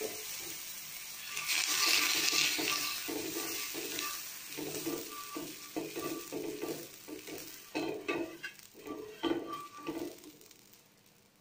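Butter melting and sizzling on a hot iron tawa, loudest about two seconds in, then a spoon scraping across the pan in quick repeated strokes as it spreads the butter, fading out near the end.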